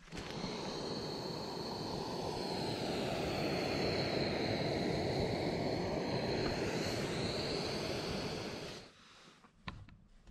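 Canister gas camp stove burning under a pot of water, a loud steady rushing hiss that cuts off suddenly about nine seconds in. A single sharp click follows near the end.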